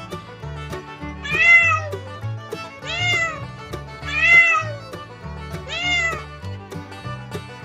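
A domestic cat meowing four times, each meow rising then falling in pitch, over background music.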